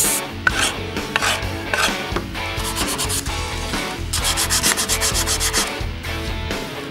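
Sandpaper rubbing on the wooden horn of an old wooden hand plane, in scratchy back-and-forth strokes, with a run of fast, even strokes from about four to nearly six seconds in.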